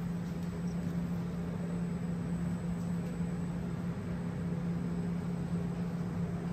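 Steady machine hum of restaurant kitchen equipment: a constant low-pitched tone over an even whooshing hiss, unchanging throughout.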